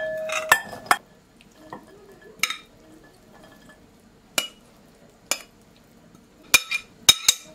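A metal spoon and glass bowls clinking as salad is spooned from one glass bowl into another: a ringing glassy clink at the start, then about seven more sharp, scattered clinks and taps.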